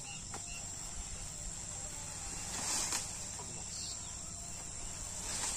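Crickets chirring in a steady high buzz, with a brief rustle of a bundle of leafy sorghum fodder stalks being handled about three seconds in.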